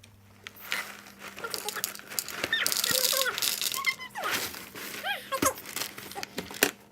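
Plastic cereal bag crinkling as it is handled and opened, with dry cereal rattling. The crackling is loudest about three seconds in.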